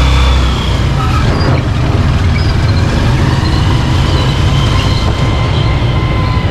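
Motorcycle engine of a tricycle running steadily while riding, heard from inside the sidecar: a loud, even low rumble with road noise.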